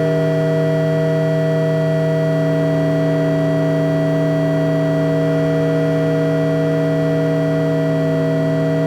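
Soma Laboratories Lyra-8 analog drone synthesizer holding a loud, steady drone of several stacked tones over a grainy, noisy texture. One of the middle tones slides slightly lower about eight seconds in.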